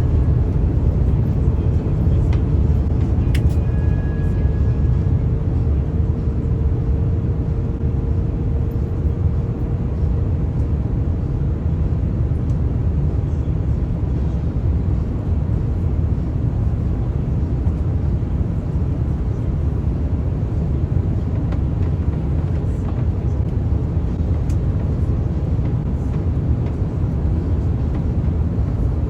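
Steady low rumble of an Airbus A350's Rolls-Royce Trent XWB engines and airflow, heard from inside the passenger cabin. A faint hum fades out over the first ten seconds or so.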